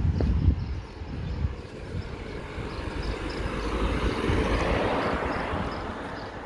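A vehicle passing on the street, its noise swelling to a peak about four to five seconds in and then fading away.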